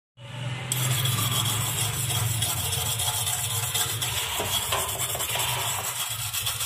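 A hard brush scrubbing metal motorcycle exhaust header pipes by hand: fast back-and-forth scratchy rubbing that goes on without a break.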